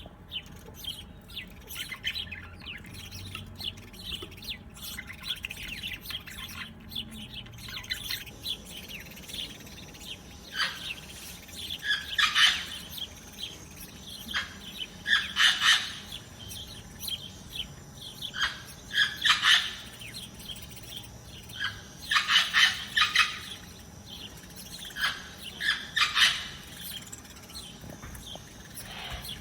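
Birds chirping: scattered soft chirps, then from about halfway through, loud clusters of rapid chirps about every three to four seconds.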